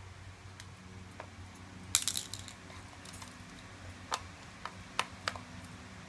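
Small plastic toy spoons and dishes being handled: a short burst of clattering about two seconds in, then a few single light clicks near the end, over a low steady hum.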